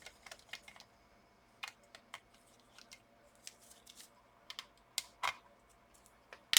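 Small screwdriver working two tiny laptop screws out, giving scattered light clicks and ticks of the bit and small metal parts.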